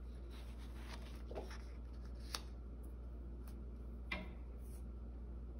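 Page of a large paper coloring book being turned by hand: a faint rustle of paper with a sharp click a little past two seconds and another near four seconds, over a low steady hum.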